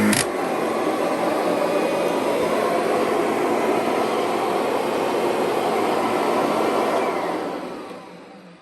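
Kirby Sentria upright vacuum cleaner running with a steady rushing noise, after a sharp click at the very start. The sound dies away over the last second or two.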